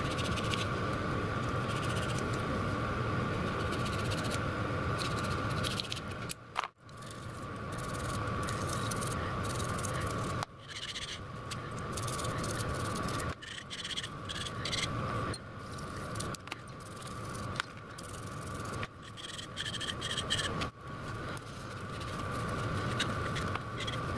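Small bristle brush scrubbing the inside of a small three-jaw lathe chuck, a run of short scratchy strokes, with the metal body handled and turned and wiped with a cloth. The scrubbing stops abruptly several times, and a steady high hum runs underneath.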